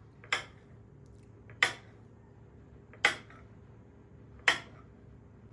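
Four light clinks of kitchenware being set down one after another, evenly spaced about a second and a half apart, each with a short ring.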